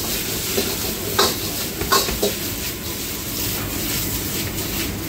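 Steady hiss of kitchen burners and steam, with a few metal knocks about one and two seconds in as boiled rice is tipped from a wire skimmer into a large steel pan.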